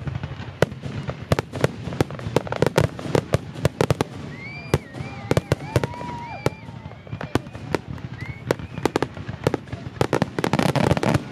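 Fireworks display: a rapid, irregular series of sharp bangs and crackles from aerial shells bursting, coming thickest near the end.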